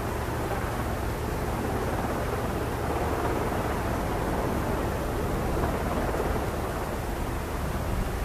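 Sikorsky SH-60J Seahawk helicopter hovering low: a steady rush of its main rotor and twin T700 turboshaft engines, with a constant low hum underneath.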